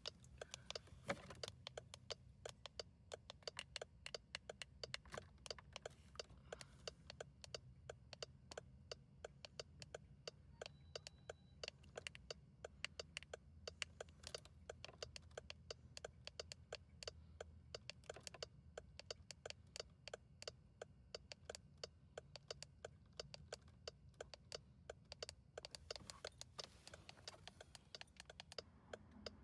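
Faint, rapid, irregular clicking, several clicks a second, over a low steady hum.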